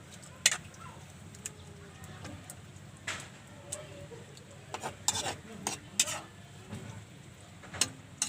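A metal cooking utensil stirring food in a pan, with a handful of sharp clinks against the pan spread irregularly through the mix of kangkong, sardines and bihon noodles.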